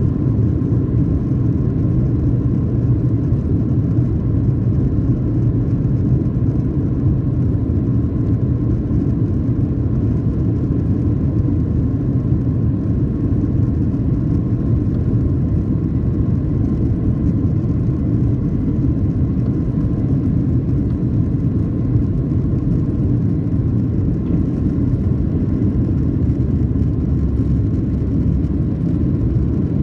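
Boeing 737-800 cabin noise through the takeoff roll and liftoff: the CFM56-7B turbofan engines running at takeoff thrust, a steady loud rumble with a faint high whine from the fans, heard from a seat over the wing.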